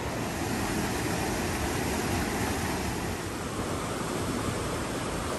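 Steady rush of water pouring over low falls, an even noise with no breaks.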